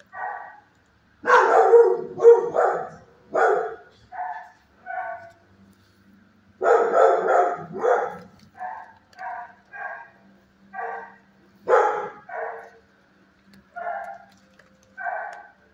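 Dog barking: short single barks repeated at irregular intervals, loudest in a run of barks a little over a second in and another around seven seconds in.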